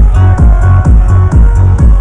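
Electronic dance music from a live DJ set, played loud through a club sound system: a steady four-on-the-floor kick drum about twice a second with off-beat hi-hats under sustained synth notes.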